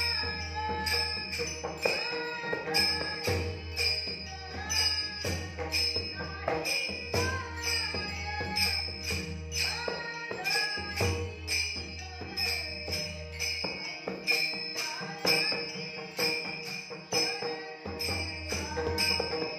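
Warkari bhajan music: a boy's voice singing the melody over a harmonium, with a pakhawaj drum giving deep bass strokes and small brass taal hand cymbals clashing in a steady, even rhythm.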